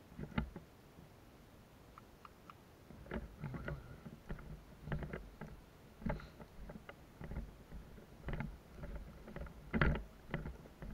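Footsteps and rustling of people walking through tall grass and brush, with clothing and gear brushing and knocking in irregular steps.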